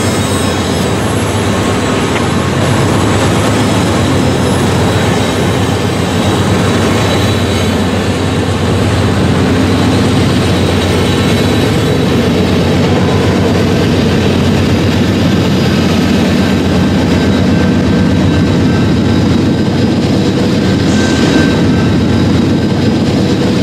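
Diesel freight locomotive sound running steadily: a continuous engine drone under a broad rushing noise.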